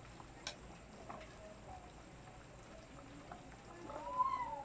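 Chicken pochero broth simmering faintly in a metal pan on a gas burner while a utensil stirs it, with one sharp clink of the utensil against the pan about half a second in. Near the end a short tone rises and falls.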